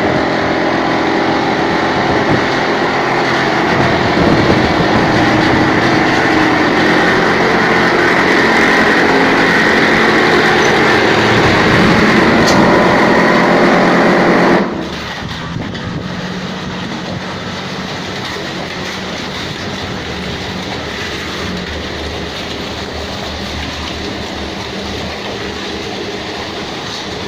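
Automatic wall plastering machine running loudly and steadily with a motor hum. About halfway through, the sound drops suddenly to a quieter steady run.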